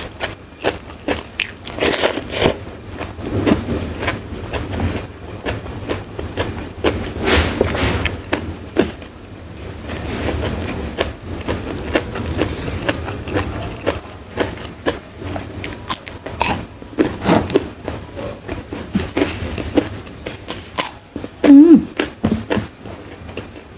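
Close-miked eating: repeated crisp bites and crunching with chewing in between, the crunch of crispy fried food or raw vegetables. One brief louder sound comes near the end.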